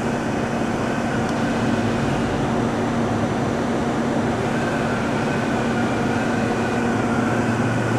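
Steady mechanical drone of a powered-up Okuma & Howa Millac 561VA CNC vertical machining center, with a steady hum that shifts lower near the end.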